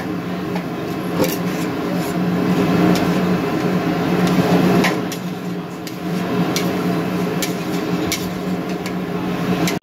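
Metal spatula and ladle clanking and scraping against a wok while noodles are stir-fried, as sharp irregular strikes, about eight in all, over a steady background hum.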